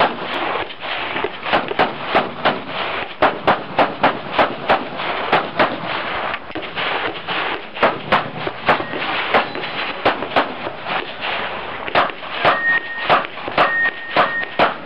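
Semi-automatic pistol shots fired in quick pairs and strings, dozens in all, with short pauses between strings. Two brief high steady tones sound near the end.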